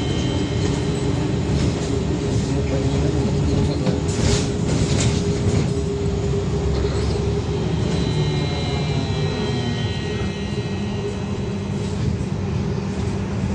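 A VMZ-5298.01 trolleybus in motion, heard from inside the cabin: a continuous rumble of wheels and body with the electric traction drive's steady whine. In the second half the whine climbs in pitch as the trolleybus gathers speed, and there is a brief rattle about four seconds in.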